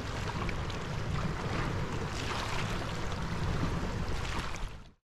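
Wind buffeting the microphone over small waves lapping and splashing against a rocky shoreline; the sound fades out and stops near the end.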